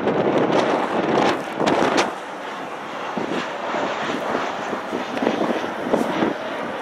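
Boeing 737-800's CFM56-7B turbofan engines on landing approach: a broad jet rush that is loudest in the first two seconds and then eases to a lower, steadier level as the airliner flares over the runway.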